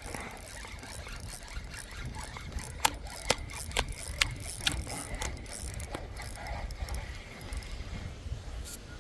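Fishing reel being cranked to retrieve line, a faint steady whine with scattered sharp clicks from its gears and handle.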